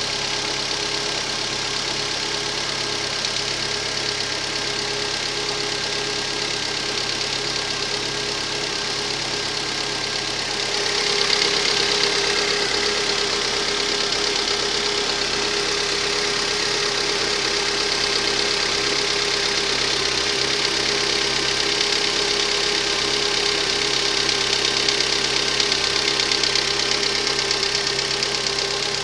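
Rover 25's 1.4 K-series four-cylinder petrol engine idling steadily, with a ticking character. About eleven seconds in it becomes a little louder and brighter and holds there.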